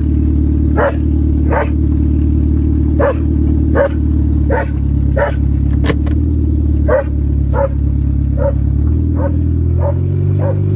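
A dog barking over and over, about a dozen barks spaced well under a second apart, over the steady running of an automatic Honda's engine, whose pitch shifts about nine seconds in.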